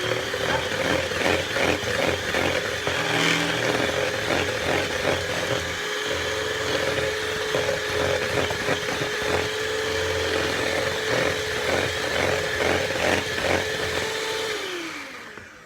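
Electric hand mixer running steadily as it whisks a runny batter mix, with rapid irregular clicking of the beaters against the bowl; the motor winds down and stops near the end.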